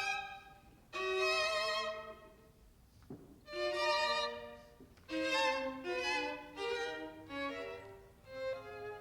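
Solo violin playing short phrases with vibrato, with brief pauses between them and some lower string notes under it in the second half.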